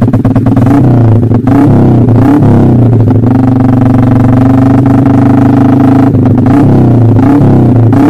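Yamaha Jupiter MX single-cylinder four-stroke, bored up to 177cc, being revved in place through a short DST Racing free-flow silencer. It starts with quick throttle blips, climbs and holds high revs for about three seconds, then drops back and is blipped again near the end.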